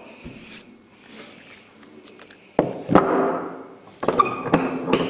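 A wooden-bodied hand plane shaving a square timber blank: two strokes, about two and a half and four seconds in, each starting sharply and lasting about a second.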